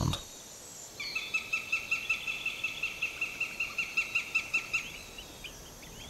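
Northern goshawk calling: a fast, even series of high repeated notes, about five a second, starting about a second in and lasting some four seconds.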